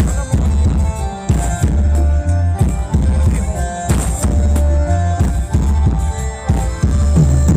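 Thai ramwong dance music from a live band, with drum kit and bass guitar keeping a steady dance beat under sustained melody notes.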